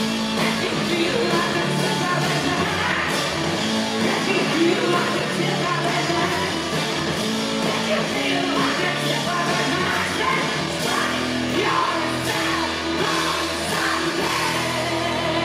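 Live rock band playing: a male lead vocal sung over electric guitar and drums, steady and loud.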